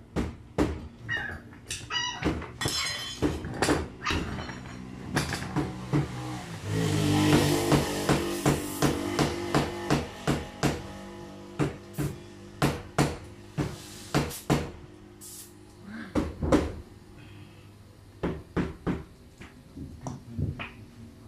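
Metal tire levers knocking and clinking against a spoked motorcycle wheel rim as the tire bead is worked over the rim, in many sharp, irregular strikes.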